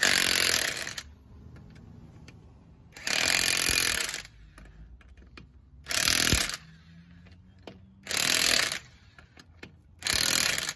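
Cordless impact wrench hammering a car wheel's lug nuts tight in five short bursts, each under a second and about two seconds apart, with faint clicks in between.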